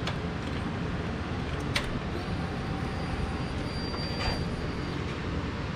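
2002 Suzuki GSX-R600's inline-four engine idling steadily just after an oil change, run so that the empty new oil filter fills. A few sharp clicks sound over it, the loudest about four seconds in.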